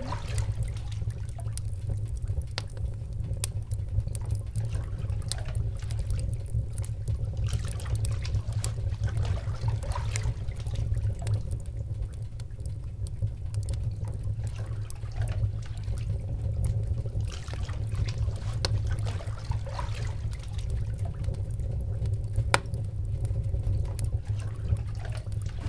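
Water in a bathtub gently trickling and splashing, with scattered small drips over a steady low rumble.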